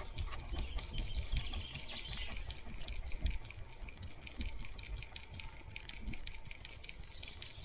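A dog's paws padding along a dirt forest track, picked up by a camera on the dog's head, with a low rumble from the mount and faint high ticking throughout.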